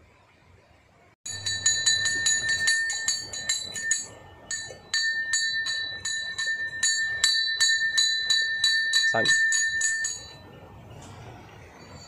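Shrine bell hung over a Murugan idol, rung by hand in quick repeated strikes, several a second. It rings on one steady clear pitch, pauses briefly about four seconds in, and stops about ten seconds in.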